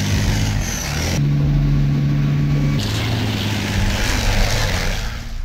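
A tank's engine running hard under load, with a steady mechanical hiss over it. The engine note shifts twice, about a second in and again near halfway.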